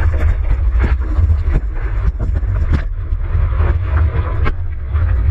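Loud, steady low rumble of wind and rushing surf on a GoPro camera's microphone, broken by repeated short splashes of water.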